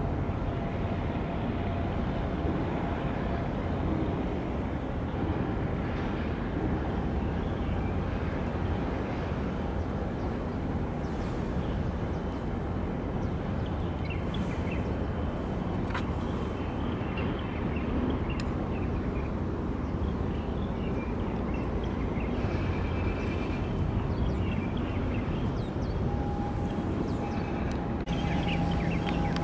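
Steady low rumble with a constant wash of noise from a large container ship passing close to shore. Near the end a faint steady hum joins in.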